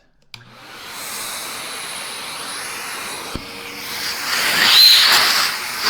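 Numatic James commercial canister vacuum switched on for a suction measurement: the motor spins up about half a second in and runs steadily. After a knock just past halfway it grows louder, with rushing air and a brief whistle, as its suction is measured.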